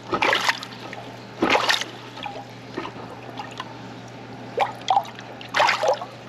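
Water trickling and splashing in four irregular spurts.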